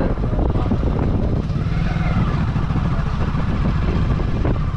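Motorcycle engine running steadily while riding along, with a heavy low rumble of wind on the microphone.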